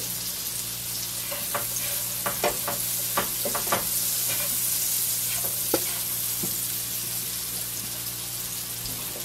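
Wild mushrooms sizzling as they sauté in butter in a frying pan, with a spatula scraping and knocking against the pan as they are stirred. The knocks come mostly in the first half, with one more a little later.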